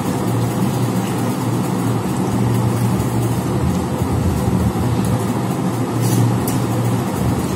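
A steady low mechanical hum with a rushing noise over it, even in level throughout, and two light clicks about six seconds in.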